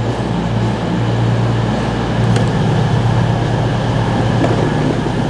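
CrossCountry Voyager diesel multiple unit's underfloor diesel engines running beside the platform, a loud, steady low drone.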